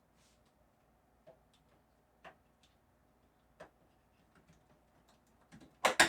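Scattered faint clicks and taps of computer parts being handled, then a pair of sharper, louder clicks near the end.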